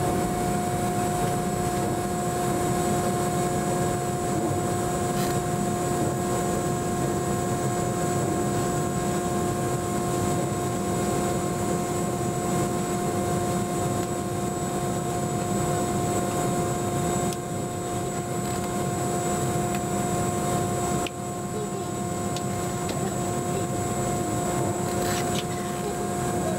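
Cabin noise of a Boeing 717-200 taxiing, its tail-mounted Rolls-Royce BR715 turbofans running at idle: a steady whine of several tones over a low rumble. The noise drops slightly about two-thirds through and again a few seconds later.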